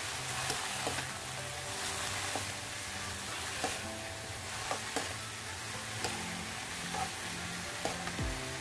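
Shredded mushrooms sizzling in a hot frying pan as a metal spatula stirs and tosses them, the spatula clacking and scraping against the pan every second or so.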